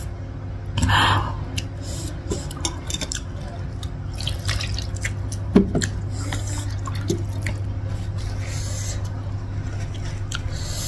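Hands being rinsed in a small bowl of water after eating with the fingers: light splashing and dripping with small clicks against the dishes, one louder splash about a second in, over a steady low hum.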